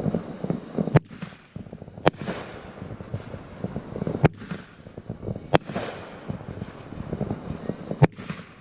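Fireworks going off: five sharp bangs spaced one to two and a half seconds apart, each with a trailing rumble, and a patter of small crackles between them.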